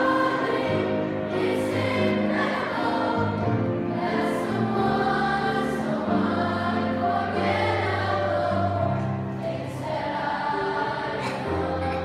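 Youth choir singing sustained notes with piano accompaniment.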